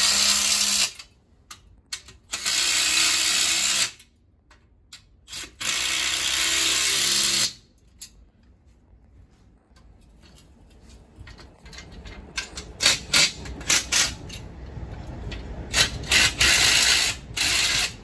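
Cordless drill with a socket adapter driving bolts to fasten a heat pump wall-mount bracket, in three runs of about a second each, then a quick string of short bursts near the end.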